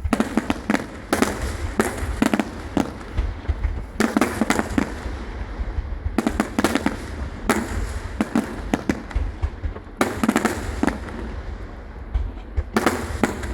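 Fireworks display: clusters of sharp bangs and crackling come every second or two, over a constant low rumble.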